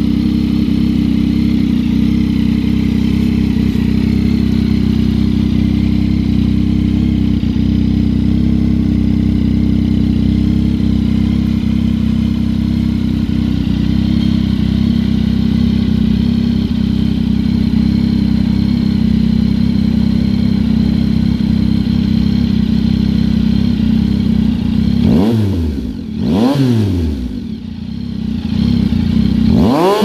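2023 Yamaha MT-09's inline three-cylinder engine idling steadily through an SC Project CR-T carbon slip-on exhaust with a cat-delete link pipe. Near the end it gives three sharp throttle blips that rise and fall quickly, the last revving highest.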